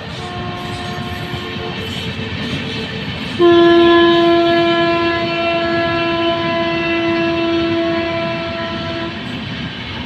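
Indian Railways WAP-7 electric locomotive's horn: a short blast, then about a second and a half later a long, loud blast held for nearly six seconds, over the steady noise and wheel clatter of the passing passenger train.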